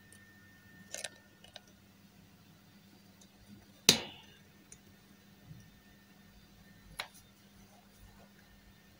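Three sharp clicks while the Z axis of a 3018 Pro mini CNC is jogged down step by step. The loudest comes about four seconds in and rings briefly, and there is a faint steady low hum underneath.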